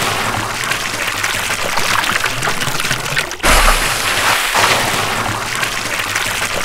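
Liquid sound effect for an ink drop: a steady, dense watery noise that breaks off briefly about three and a half seconds in and starts again.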